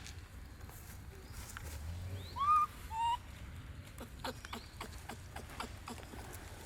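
Baby monkey giving two short, high cries, the first rising then held, the second shorter. They are followed by a run of light clicks and taps.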